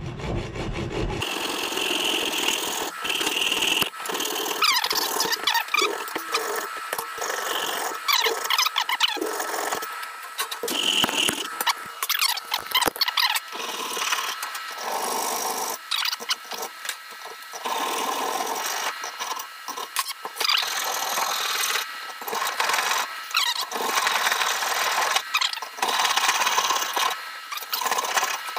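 Hacksaw strokes back and forth across the steel can of a spin-on oil filter, scoring around it so the top can be popped off. The rasping strokes carry squeals from the blade, coming in runs with short pauses between.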